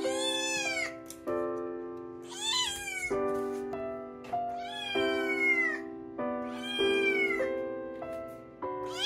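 A Munchkin kitten meowing repeatedly, about five meows some two seconds apart, each dropping in pitch at the end. Background music with held chords plays underneath.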